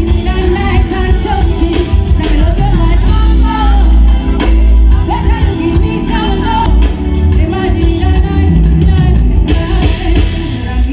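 Loud live music from a festival stage: a singer over a heavy bass-driven backing track.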